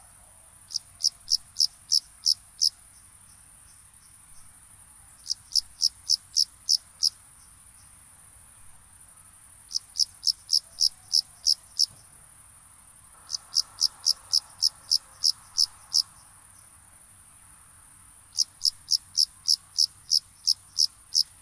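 Cricket chirping in five bursts of seven or eight evenly spaced high chirps, about three or four a second, with pauses of a few seconds between bursts, over a steady high hiss.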